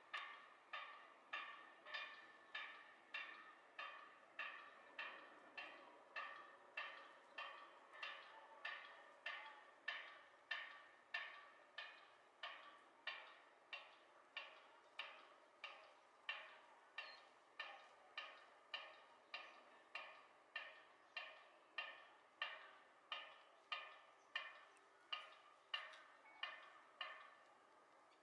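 A steady, even series of sharp, ringing ticks, nearly two a second, each fading quickly, with a brief pause near the end.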